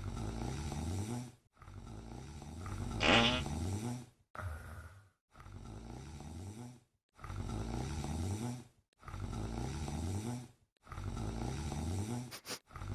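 A sleeping person snoring in stretches of about one to two and a half seconds, each cut off by a short dead silence. About three seconds in there is a brief higher-pitched whistle-like sound, the loudest moment, and a few sharp clicks come near the end.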